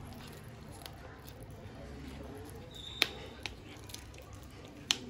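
A cat chewing raw fish: wet chewing with a few sharp clicks, the two loudest about three seconds in and near the end.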